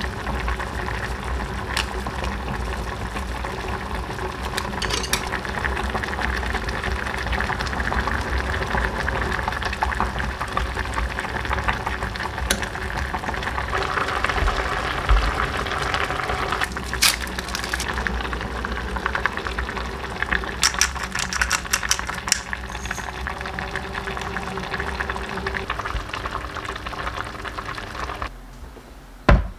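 A pot of kimchi stew boiling on the stove, a steady bubbling hiss. There are a few sharp clicks in the second half. The sound drops away suddenly near the end, followed by one loud knock.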